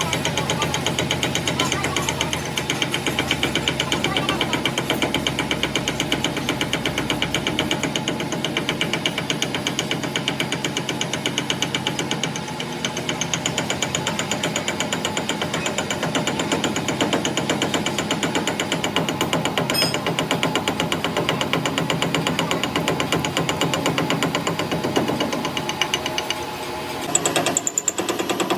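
Metal lathe running and cutting, with a rapid, steady knocking rhythm. The rhythm dips briefly near the end, then resumes.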